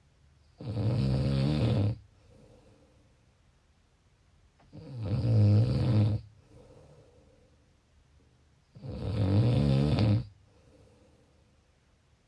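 Snoring in a steady rhythm: three loud snores about four seconds apart, each lasting about a second and a half, with faint breathing between them.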